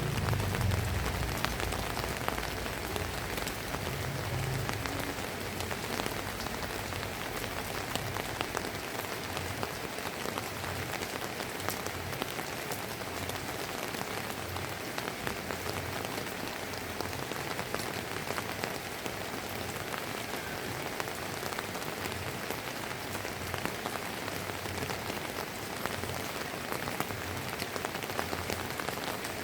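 Steady drizzling rain falling on hard surfaces, with many small drops ticking through the hiss. A low rumble dies away in the first couple of seconds.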